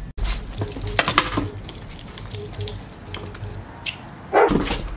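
Metal leash and harness clips clinking and jangling in a few separate clinks as they are handled. Near the end the Berger Picard gives a loud bark, the loudest sound here.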